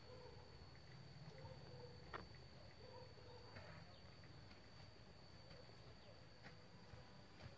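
Near silence: faint outdoor field ambience with a steady high-pitched buzz, a few faint short distant calls and a single faint tick about two seconds in.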